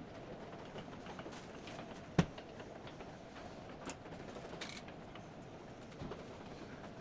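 Scattered light clicks and taps from handling hard objects, with one sharp knock about two seconds in, over steady room noise.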